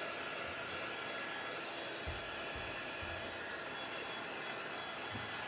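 Handheld craft heat tool blowing steadily as it dries chalk paste. A few soft low bumps come about two to three seconds in.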